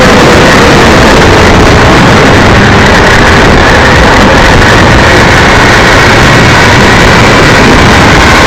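Motorcycle on the move: a steady engine drone under loud wind rush on the microphone.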